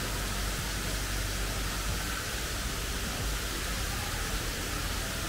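Steady rushing hiss of water pouring from an artificial rock waterfall into a swimming pool.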